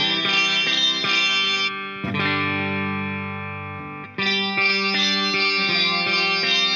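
Electric guitar played through a GTC REVPAD multi-effect on a phased pitch-shifting setting. About two seconds in the sound switches to a clean chord that rings and fades for about two seconds, then the dense effected sound cuts back in abruptly.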